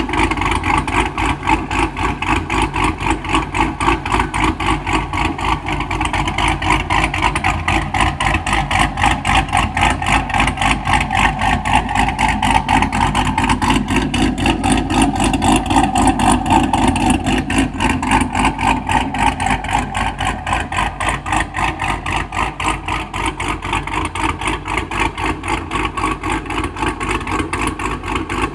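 Cadillac CTS-V's V8 running near idle with a loud, pulsing exhaust note; the pitch lifts a little about halfway through and settles back.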